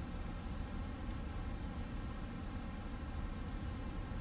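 Crickets chirping steadily in an even, pulsing high trill, over a low rumble on the microphone.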